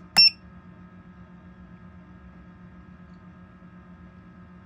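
Nurture Right 360 incubator control panel giving one short, high beep as the menu button is pressed, the first step of holding it down to enter setting mode. Under it the incubator runs with a faint, steady hum.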